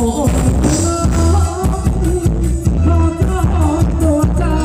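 Thai ramwong dance band music: a singer's melody over a steady, driving drum and bass beat.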